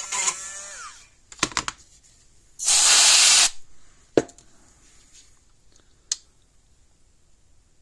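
Aerosol contact cleaner sprayed in one hissing burst of about a second. A few clicks and taps of handling come before and after it.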